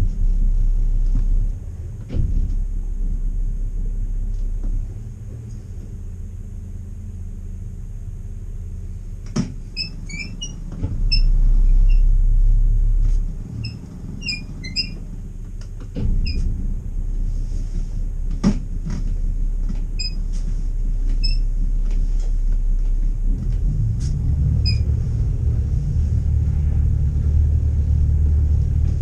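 Boat engine running at low speed, heard from inside the enclosed cabin as a steady low rumble that swells briefly about eleven seconds in and grows louder over the last several seconds. A few knocks and some short high chirps come through in the middle.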